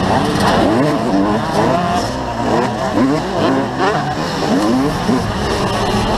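Motocross bike engine revving hard, its pitch sweeping up again and again as it accelerates and changes gear through the corners, several rises in a row.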